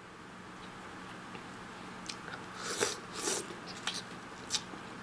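Eating Dungeness crab at close range: sharp cracks and clicks of the shell being broken and picked at, with chewing and biting. Two longer, louder bursts come a little past halfway.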